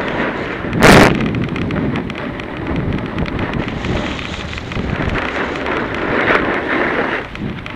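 Wind buffeting the camera microphone and skis hissing over packed snow as the skier descends, with one loud burst about a second in.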